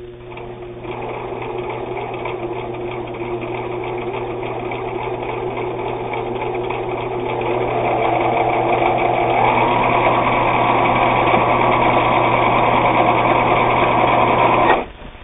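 Viking Husqvarna Optima 150 electric sewing machine sewing a straight stitch, its motor whirring steadily under the clatter of the needle. It speeds up about two-thirds of the way through and stops abruptly near the end.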